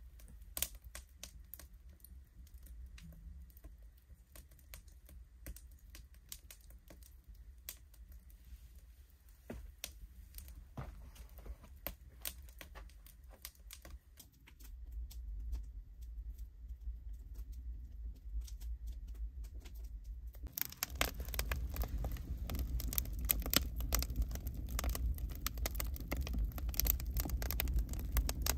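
Dense, irregular crackling and clicking over a low rumble, growing louder and busier about twenty seconds in.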